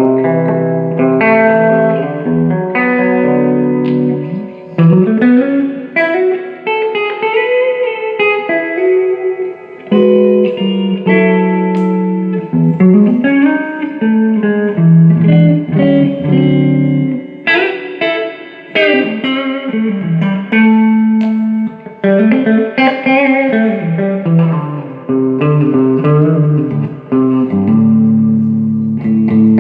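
Electric guitar played through a Fender Blues Junior tube combo amp, mixing chords and single-note lines with string bends, and ending on a held chord.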